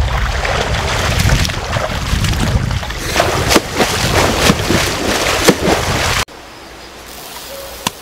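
River water running and splashing, with a heavy low rumble, and sharp splashes in the middle. The sound cuts off abruptly about six seconds in, leaving a much quieter outdoor background.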